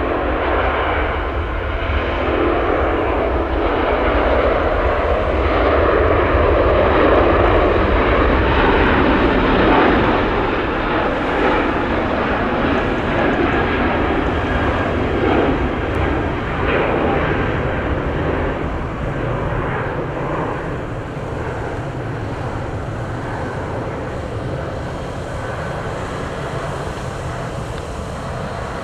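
Four-engine Airbus A380 jet airliner flying past with a loud engine roar that builds to a peak about eight seconds in and then slowly fades.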